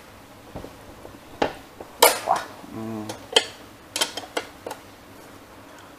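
A 12 mm ring spanner clinking on a Yamaha FZ's rear brake stay-arm bolt as the nut is worked loose: a handful of sharp metallic clinks at uneven intervals.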